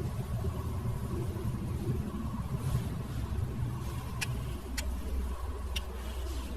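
Steady low rumble of a running motor with a thin steady hum above it, and three sharp clicks in the second half.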